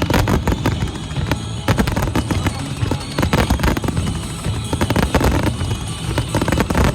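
Starmine fireworks going off in a rapid barrage of overlapping bursts over loud accompanying music.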